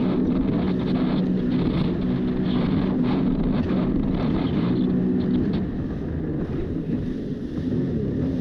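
Yamaha WaveRunner jet ski's four-stroke engine running at high speed, the hull slapping through choppy water with spray hissing past. About six seconds in the splashing eases and the engine note shifts and dips slightly.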